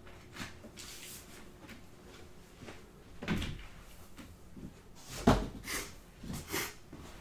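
Things being handled on a tabletop: scattered rustles and light knocks, with the loudest thump about five seconds in.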